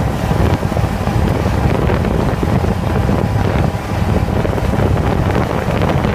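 Loud wind buffeting the microphone, a continuous low rumbling roar that rises and falls rapidly, from moving quickly across open lake ice.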